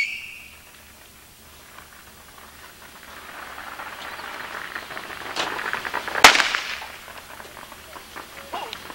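A firecracker going off with one sharp bang about six seconds in, a fainter crack just before it, over a faint rising hiss.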